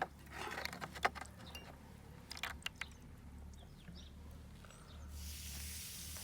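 Small sharp clicks, taps and scrapes of brass cartridge cases being handled with tools in a container of acid and soda, the loudest click at the very start. About five seconds in, a steady hiss sets in.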